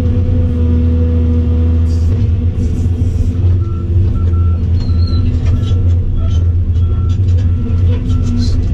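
Volvo EC700CL excavator's diesel engine and hydraulics running steadily under load, heard from inside the cab as the bucket is worked. From about three and a half seconds in, a series of short, even, high beeps like a backup alarm repeats about twice a second.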